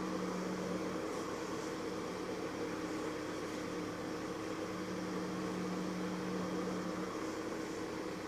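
Toyota Lite Ace Noah's power steering pump humming with the engine running, a steady drone with a lower tone that drops out for a few seconds midway and returns; the hum of a failing pump, just dosed with a sealant additive that is meant to cure it only after about 150 km.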